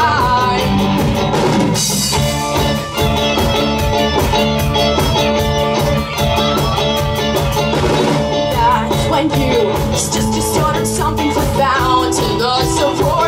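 Live rock band playing an instrumental passage: electric guitars over bass guitar and drum kit, steady and loud.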